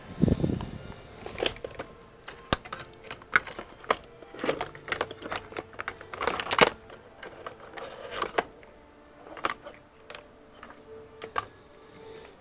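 A dull thump at the start, then irregular clicks and taps, some in quick runs: computer keyboard and mouse clicks.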